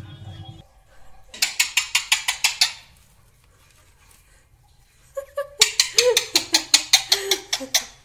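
Alexandrine parakeet giving rapid, harsh clicking chatter, about seven clicks a second, in a short bout about a second and a half in and a longer one from about halfway to the end. This is the bird's angry, aggressive display, made while it lunges to bite.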